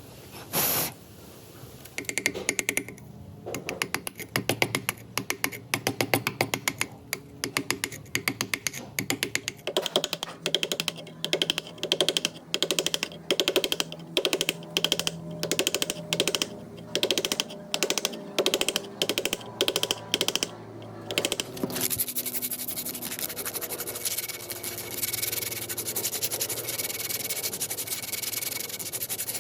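Rapid mechanical clicking in short, repeated bursts, about two bursts a second, then a steady rubbing sound starting about three-quarters of the way in.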